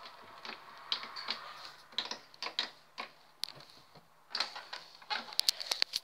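Irregular clicks and taps from a hand working the control panel of a Whirlpool washing machine, over a faint steady hum.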